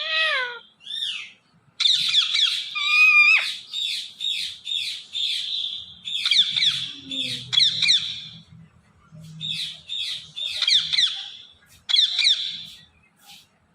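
Ringneck parakeet calling: a run of high-pitched squawks and quick chattering calls, one after another with short pauses.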